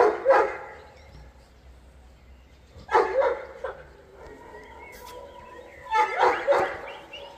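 Puppies yapping in three short bouts about three seconds apart, with a thin, steady whine in between.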